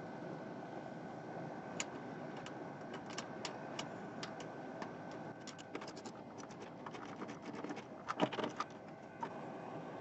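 Small metallic clicks and taps of hand tools and wire terminals being worked in a truck's engine bay, scattered throughout and busiest about eight seconds in, over a steady background hiss.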